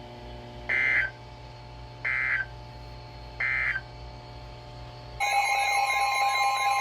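Three short data bursts of a NOAA Weather Radio end-of-message signal, each under half a second and about a second and a half apart, over a faint steady hum. About five seconds in, a loud alert sound begins: steady high tones with a warbling, siren-like tone over them.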